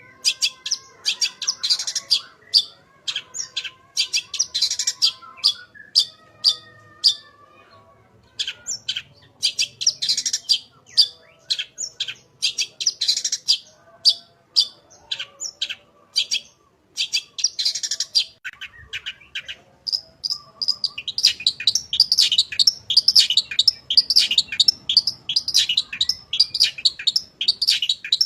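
Long-tailed shrike (cendet) singing: fast strings of sharp, high chirps and trills in clusters with short pauses. From about two-thirds of the way through they run together into continuous chattering. The song is packed with mimicked notes of other birds ("isian").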